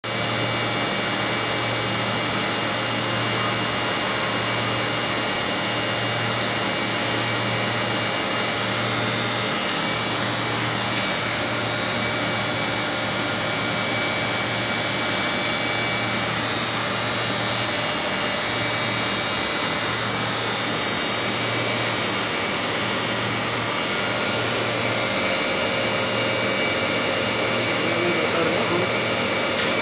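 Batch ice cream freezer running, a steady machine whir with an even hum.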